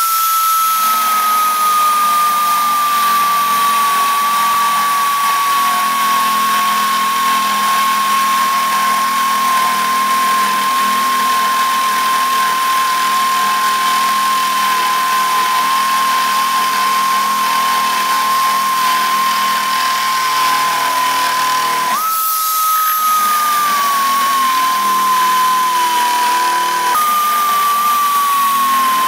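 Straight grinder running a rotary grinding file against stainless steel: a steady high whine over a hiss, its pitch sagging slowly as the file bites into the metal. Twice in the second half the whine briefly rises and then sinks again.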